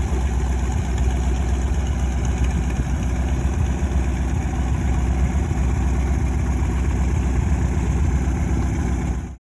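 Small aircraft engine, an AeroVee 2.1 air-cooled flat-four, running steadily at idle; the sound stops suddenly near the end.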